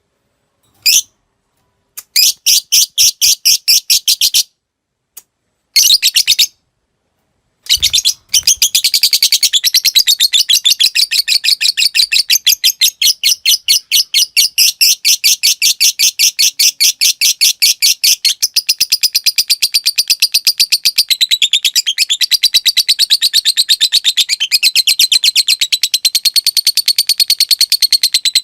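Lovebird chattering in rapid, evenly repeated shrill notes: a few short bursts with pauses at first, then from about eight seconds in one long unbroken chatter. This is the long 'ngekek' song style that Indonesian lovebird keepers train for.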